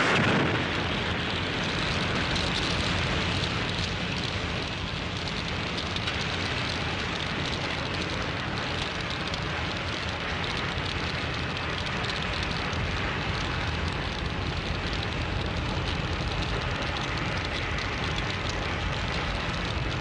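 Sound effect of a large fire burning: a dense, continuous crackling noise that starts suddenly at full strength, eases slightly after a few seconds and then holds steady.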